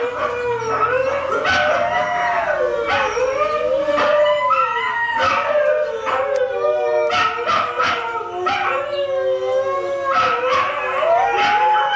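Several huskies howling together: long, overlapping, wavering howls with short yips between them. A pet husky is howling along to a recording of huskies howling played from a computer.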